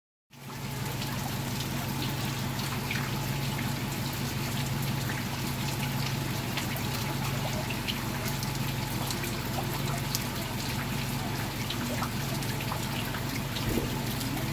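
Rain falling steadily, with water trickling and many small drips, over a steady low hum.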